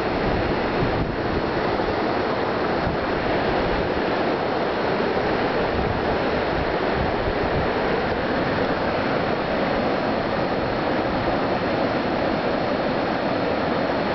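Steady rushing of shallow water flowing over and around rocks, an even noise that does not change.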